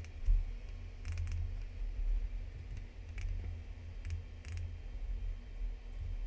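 Scattered clicks from a computer mouse and keyboard, some single and some in quick runs of two or three, over a steady low hum.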